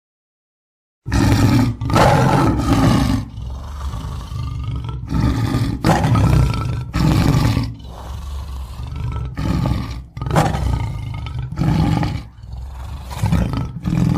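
Tiger roaring and growling again and again, starting about a second in, with loud low calls of uneven length.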